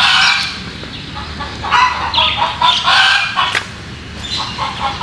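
Backyard chickens giving loud, repeated clucking calls in several bursts about a second apart.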